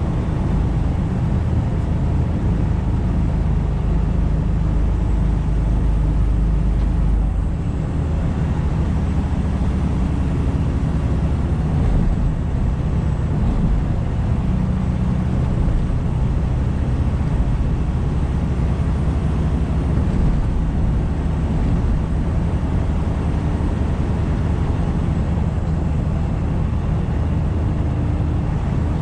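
Tractor-trailer's diesel engine and road noise while driving, a steady low drone; the deepest part of the rumble drops off about seven seconds in.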